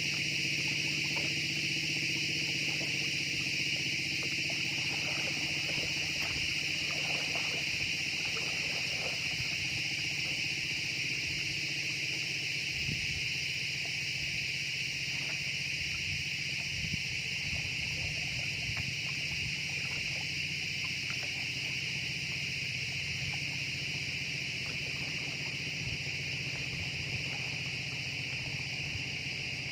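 Insects calling in a steady, unbroken high-pitched drone, with a faint low hum and scattered soft clicks beneath.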